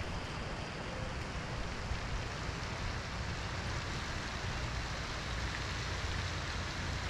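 Steady, even rushing noise with a low hum beneath it and no distinct events.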